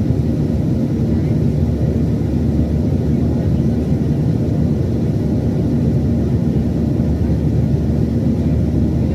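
Steady low cabin noise of a Boeing 737-800 in flight, its CFM56-7B jet engines running evenly and heard from inside the passenger cabin.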